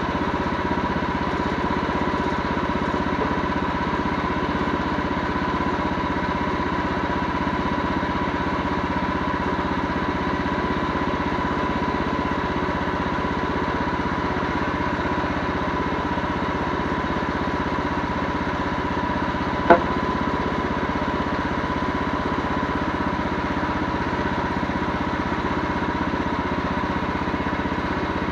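An engine running steadily at a constant speed, with one sharp click about twenty seconds in.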